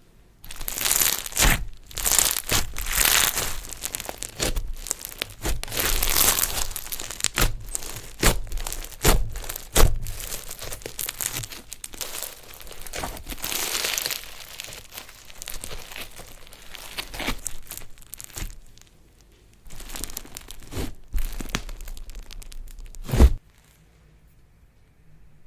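Slime being worked by hand, with a dense, irregular crackling and crinkling. It ends in one sharp snap near the end, then falls almost silent.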